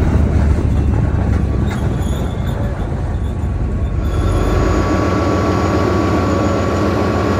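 Tank engine and steel tracks running as the tank drives through a shallow river, with water rushing and splashing around the hull. About four seconds in the sound changes abruptly to a steadier engine drone with a whining tone.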